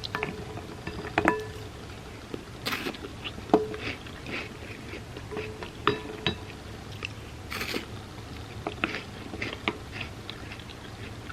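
Close-up chewing and crunching of chocolate hazelnut wafer cereal in milk, with a spoon clinking against the bowl several times.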